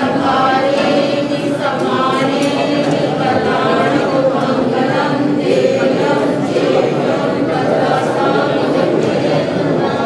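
Many men's and women's voices chanting together without accompaniment: a devotional salutation (vandana) sung to a Jain monk.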